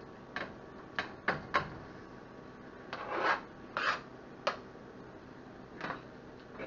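Shirt fabric rubbing and brushing against the camera's microphone as the camera is bumped: a run of short scuffs, then a few longer rustles midway, and a last scuff near the end.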